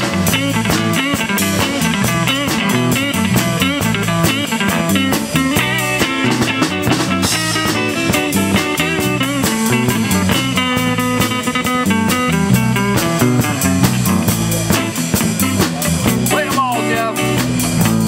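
Instrumental break in a blues-rock song: a guitar plays bending lead lines over bass and a drum kit.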